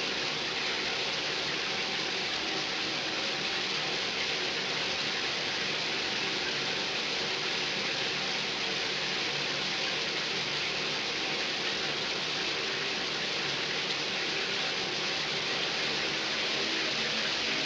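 Steady rain falling, an even hiss with no breaks, with faint steady tones underneath.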